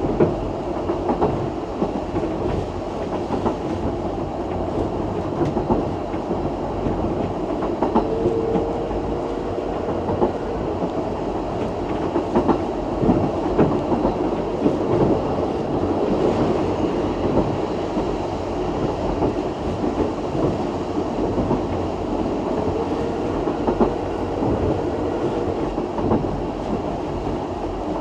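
Isle of Man Steam Railway train running along the line: a steady rumble with the wheels clacking over the rail joints. A faint steady tone comes in briefly about a third of the way in and again later on.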